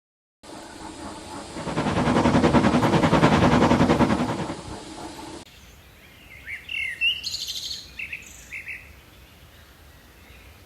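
Train sound effect with a fast, even rhythm that swells and fades over about five seconds, then cuts off suddenly. Birds chirp in short calls over faint outdoor ambience after it.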